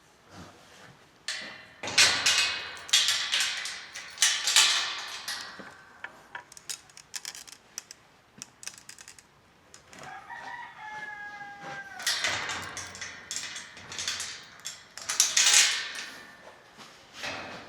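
Roosters crowing repeatedly in a barn: harsh, loud crows in clusters early, late and near the end, with a shorter, clearer call that falls in pitch just before the middle.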